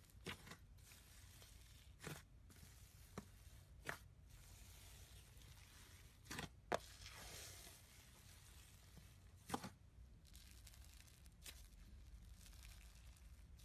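A hand working a large mass of fluffy slime, mostly very quiet, with several short, sharp pops scattered through it. The loudest pop comes about halfway through.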